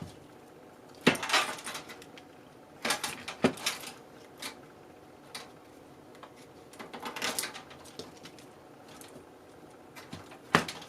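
Handling noise from computer parts being moved and set down: a few short bursts of clicks, knocks and rattles with quiet gaps between them.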